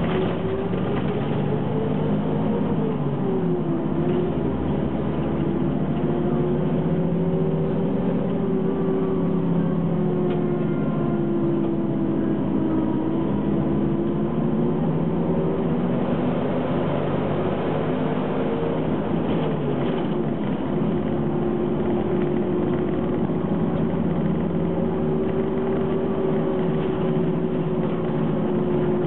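Ikarus 280 city bus's diesel engine running under way. Its pitch rises and drops back twice, a few seconds in and again about two-thirds through.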